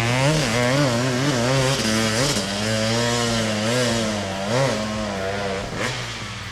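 KTM 450 SXF single-cylinder four-stroke motocross engine revving, its pitch rising and falling with repeated bursts of throttle. It grows quieter toward the end.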